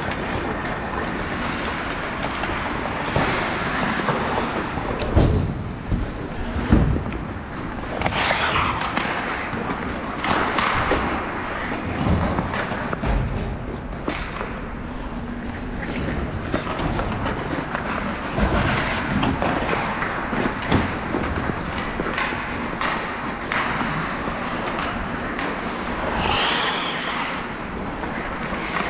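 Sounds of a 3v3 game in play: a steady scraping, rolling noise broken by several sharp thuds and knocks.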